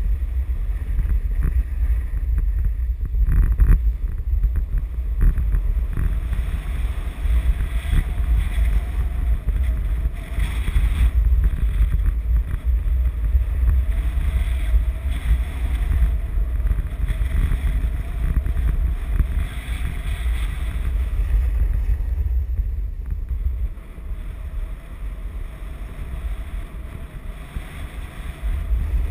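Wind rumbling over a GoPro's microphone during a downhill ski run, with the hiss of skis sliding over packed groomed snow. It eases off somewhat near the end.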